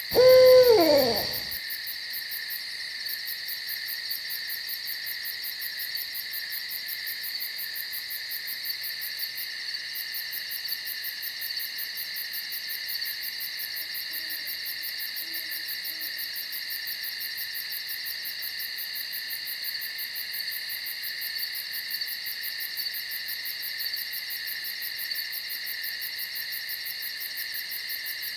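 An owl calls once, a loud note falling in pitch over about a second. Under it runs a steady night chorus of crickets and other insects with a fast, high pulsing trill, and a faint low call comes about halfway through.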